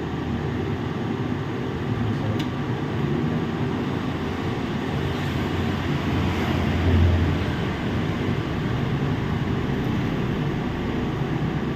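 Steady low droning hum of running machinery, swelling briefly about seven seconds in.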